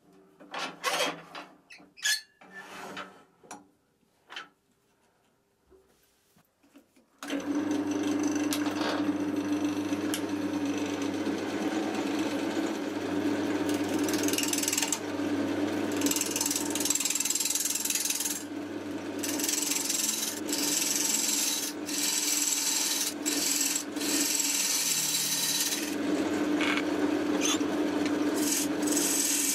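A few clicks and knocks of handling, then about seven seconds in a wood lathe is running with a steady low hum while a turning tool cuts the spinning oak blank, a continuous scraping that breaks off briefly a few times.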